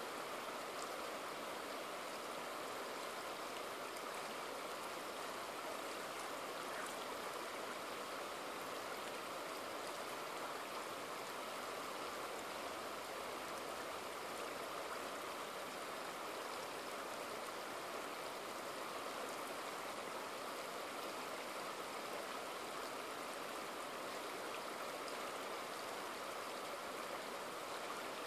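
A shallow rocky river running in a steady rush over boulders and cobbles.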